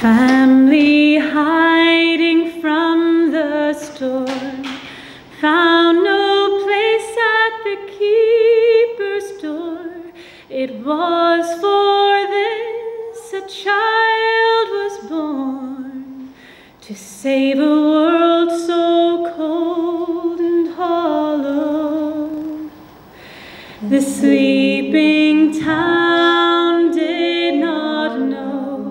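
Three women singing a carol together in harmony without instrumental accompaniment, in sung phrases of a few seconds separated by short breaks.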